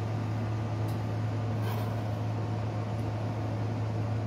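A steady low hum with a few faint taps of a chef's knife slicing green bell peppers on a wooden cutting board.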